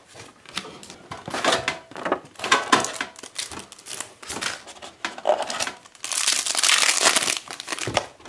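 Foil trading-card booster pack wrapper crinkling in the hands. About six seconds in, a longer, louder burst of crinkling and tearing is heard as the foil pack is ripped open.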